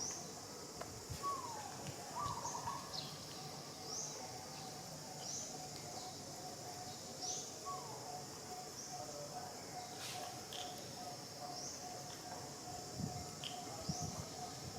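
Outdoor ambience with a bird repeating a short high chirp about every second and a half. A few lower, short downward calls come in the first half, and a faint steady drone runs through the second half.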